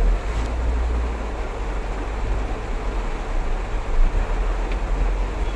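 Steady cabin noise inside a car in heavy rain: a low engine and road rumble under an even hiss, with a single knock about four seconds in.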